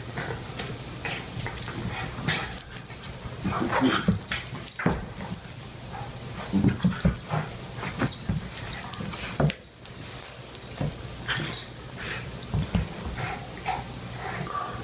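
Small terriers play-fighting, with irregular short dog vocalisations mixed with scuffling on the rug.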